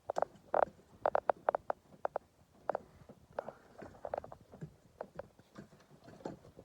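Hand wrench working at a seized engine-mount bolt: a string of sharp metallic clicks and clinks, in short irregular groups.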